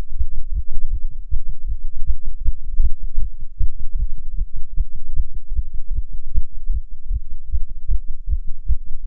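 Human heartbeat beating fast, a quick steady run of dull low thumps. The raised rate is the effect of nicotine from smoking a cigarette, in someone who does not usually smoke.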